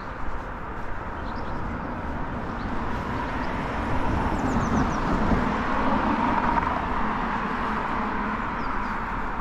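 Street ambience: steady road-traffic noise that swells to a peak about halfway through and then eases off, with a few faint high chirps.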